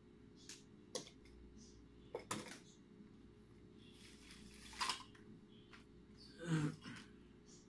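Parts being handled on a workbench: a plastic bag rustling, with scattered light clicks and knocks as plastic pieces are set down. The loudest, a duller knock, comes near the end.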